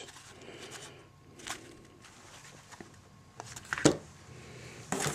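Clutch-kit parts and their packaging being handled in a cardboard box: light rustling with a few short knocks and taps, the sharpest just before four seconds in, over a faint steady hum.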